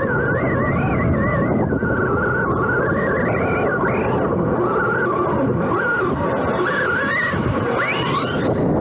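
Electric RC monster truck's motor whining under a steady rush of noise, its pitch wavering up and down with the throttle, then rising sharply near the end as the truck speeds up.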